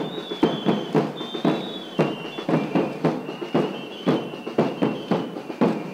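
Festival dance-band music: a drum struck in a steady beat about twice a second, under shrill, sustained piping tones from flutes or whistles.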